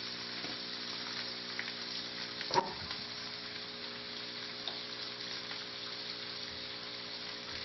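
Chopped vegetables and a whole green chili sizzling steadily in hot oil in a wok, with one sharp knock about two and a half seconds in.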